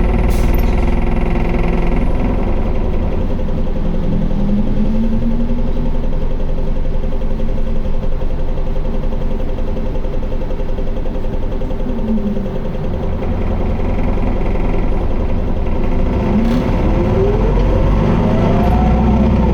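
Isuzu Erga city bus (QDG-LV290N1) diesel engine driving under load, heard from inside the cabin, with its automatic gearbox held in fourth in power mode: a steady engine drone with rising and falling whines that come and go several times. This bus is known for an odd noise and heavy vibration.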